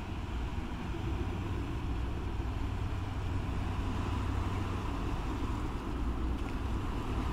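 Tugboat's diesel engines running as it passes close, a steady low rumble.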